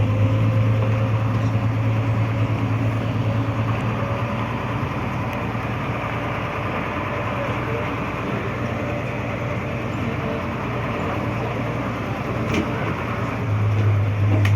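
Tour bus driving along: a steady low engine drone with road noise.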